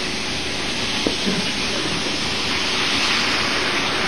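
Model train running along its track, a steady hiss-like noise with one faint click about a second in.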